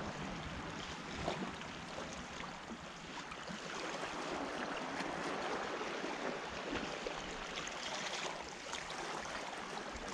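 Sea waves washing ashore: a steady hiss of surf, with a few faint small knocks.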